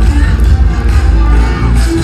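Loud music with a heavy bass line.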